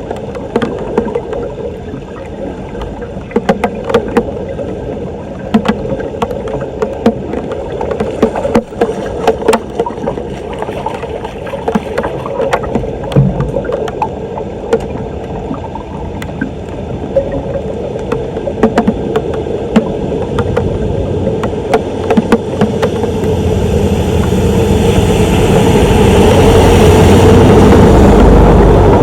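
Floodwater rushing and gurgling, broken by many sharp clicks and knocks during the first half. The rush grows steadily louder over the last several seconds.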